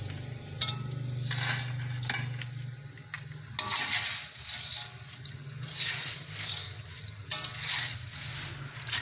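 Wire mesh skimmer scraping and clinking against a metal wok as it stirs and scoops small impun fish frying in hot oil, with the oil sizzling. The scrapes come in several short rushes, about four over the stretch.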